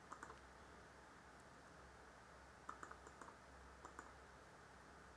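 Faint clicks of a computer mouse: two near the start, then a quick cluster about three to four seconds in, over a low steady hum.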